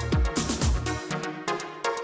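Electronic background music with a steady kick-drum beat about twice a second; the kick and bass drop out about halfway through.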